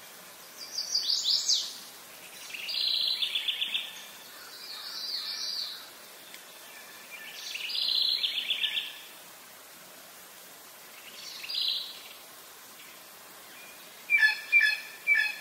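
A songbird singing: five short phrases of fast repeated high notes, each lasting about a second and spaced two to three seconds apart, over a faint steady outdoor hiss. Near the end, three short, sharp pitched calls.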